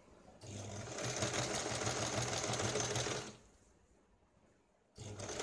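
Electric sewing machine stitching a folded fabric hem in two runs. It starts about half a second in, picks up speed, stops after about three seconds, then starts again near the end.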